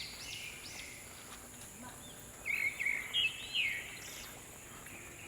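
Wild birds calling: a run of quick, arching high chirps, then a louder cluster of calls about two and a half seconds in.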